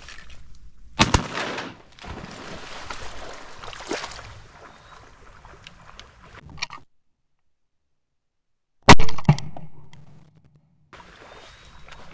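Shotgun shots fired from a duck blind: one about a second in, then the loudest about nine seconds in, quickly followed by another, with wind noise between.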